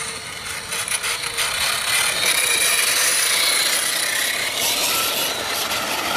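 Electric motors and gear drives of 1/10-scale RC rock crawlers whining, rising and falling in pitch with the throttle, with rubber tyres scrubbing and grinding on rock. Cuts off suddenly at the end.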